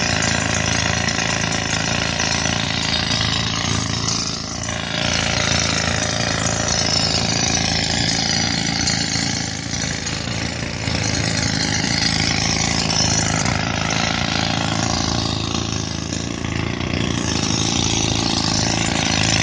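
Pneumatic rock drills hammering continuously into stone, fed by a tractor-driven Atlas Copco air compressor whose engine runs steadily underneath.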